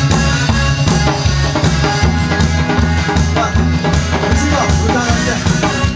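Instrumental intro of a trot song: a steady drum-kit beat with bass drum and snare under a bass line and melody.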